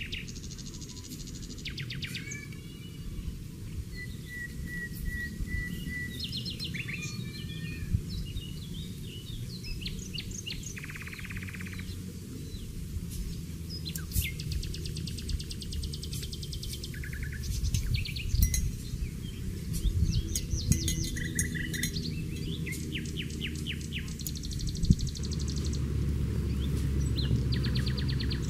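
Wild birds chirping and singing: many short calls and trills, including a run of repeated notes, over a low outdoor rumble that becomes louder and steadier near the end.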